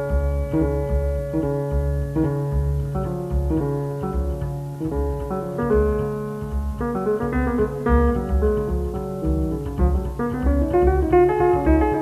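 Background music: a keyboard melody in sustained notes over a steady, low pulsing beat.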